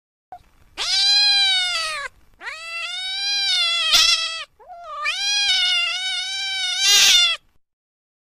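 A cat giving three long, drawn-out meows, each over a second long, with short gaps between them; the last one ends in a louder cry.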